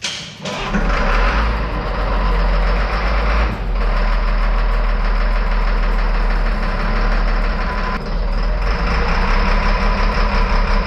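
Caterpillar 950F wheel loader's Cat 3116 diesel engine running, freshly fired on its first start after a rebuild with a new camshaft and a replacement for a bent pushrod. The sound dips briefly twice, about three and a half seconds in and again about eight seconds in.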